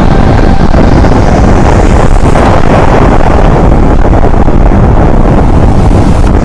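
Heavy wind noise on the microphone of a moving motorcycle, over a Bajaj Pulsar NS200's single-cylinder engine running at road speed. The sound is loud and steady throughout.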